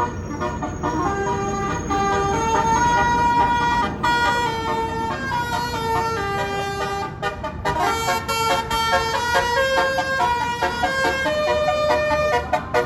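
Bus 'telolet basuri' musical air horn playing a tune: a run of held, horn-like notes stepping up and down in pitch, over a steady low hum.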